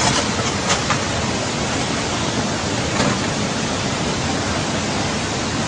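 Steady, loud rushing noise of typhoon rain and water, with a few faint ticks.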